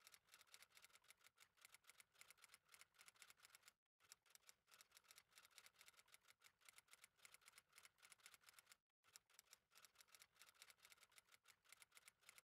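Faint, rapid clicking of keys typing, with two short pauses and a sudden stop near the end.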